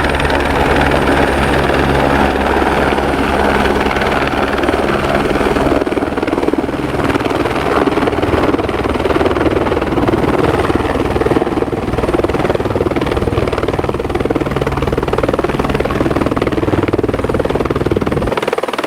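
Helicopter running, steady and loud engine and rotor noise with a low, even rotor tone; the lowest part drops away just before the end.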